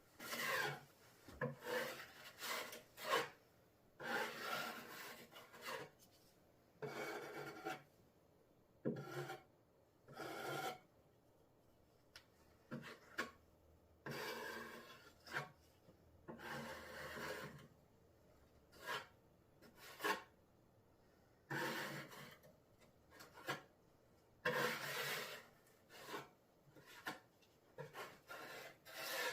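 A thin slurry of Henry Feather Finish cement being spread and scraped across a laminate tabletop with a flat blade, in repeated irregular rasping strokes of about half a second to a second each, with short pauses between them.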